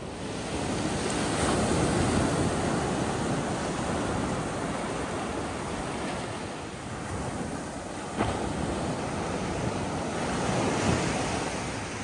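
Sea waves washing onto a beach, the surf swelling and easing, with a single sharp tap about eight seconds in.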